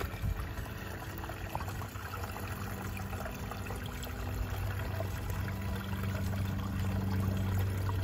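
Small, shallow stream trickling steadily, with a steady low hum underneath.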